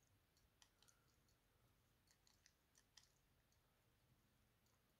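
Near silence, with a dozen or so faint, irregular small clicks from fingers handling a 1950s Bucherer wristwatch with its caseback off.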